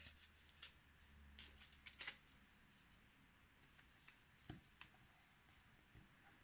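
Faint crackling and rustling of a square sheet of paper being folded along its diagonal and creased. There are short crinkles about a second and a half to two seconds in and again around four to five seconds.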